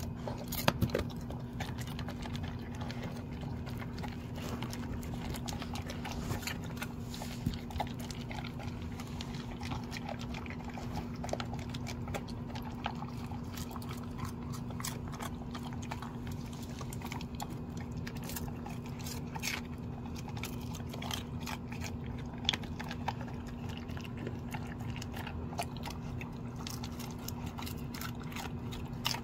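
Dalmatian eating dry kibble and cabbage from a bowl: irregular crunches and clicks of chewing and of its muzzle against the bowl, over a steady low hum.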